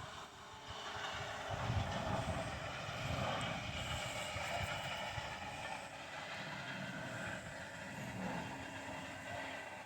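A steady, unidentified mechanical drone, like a jet plane sound, with a low rumble under it.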